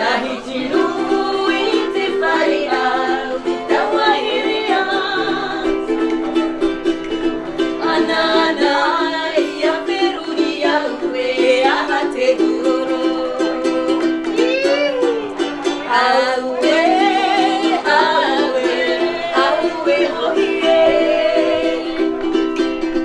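A ukulele strumming steady chords while a woman sings a wavering melody over it.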